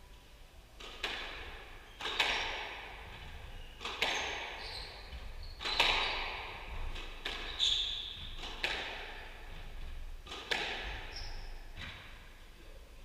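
Squash rally: the ball is struck by rackets and cracks against the court walls every second or two, each hit echoing in the enclosed court. A few short, high squeaks come in between, from shoes on the wooden floor.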